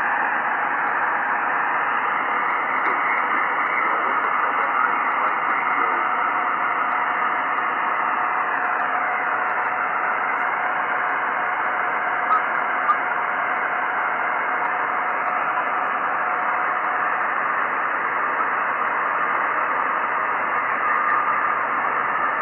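Steady hiss from an Icom IC-9700 receiver in upper sideband on FO-29's 435.84 MHz satellite downlink, a band of noise that stops sharply just under 3 kHz. Faint whistling tones sit in the noise, one gliding down in pitch about nine seconds in, and there are two short clicks a little after twelve seconds.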